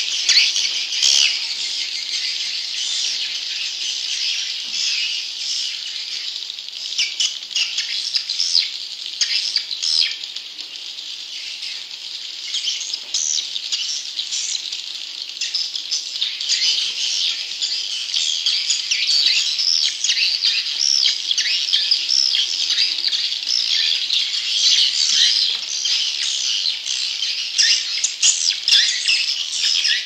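A flock of swiftlets twittering without a break: a dense, high chatter of rapid, overlapping chirps.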